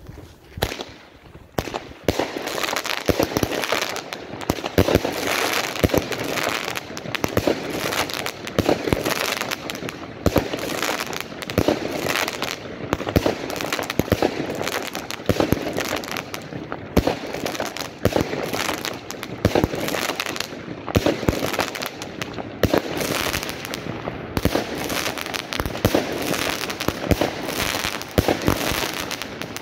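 25-shot 20 mm consumer firework cake (Gorilla TXB2798 Triplex) firing its shots in quick succession, each launch followed by a burst overhead. The shots start about a second and a half in, after a short quiet spell while the fuse burns, and then go on without a break.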